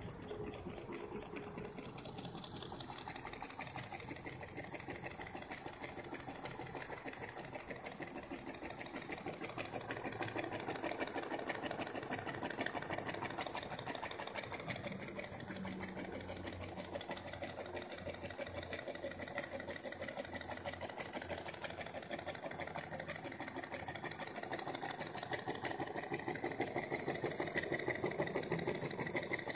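Small homemade single-cylinder steam engine running on steam from a can boiler, on its first run: a rapid, even mechanical clatter that grows a little louder about three seconds in.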